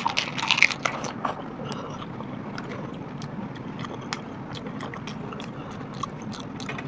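Pani puri being eaten: a few sharp bites and crunches of the crisp puri shell in the first second, then chewing with occasional small clicks.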